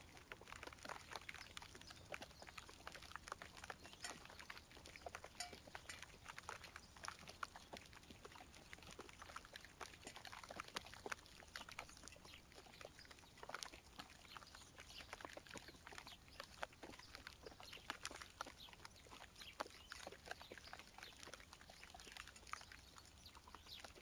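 Faint rain pattering: a dense, irregular stream of small ticks as drops strike dead leaves and ground.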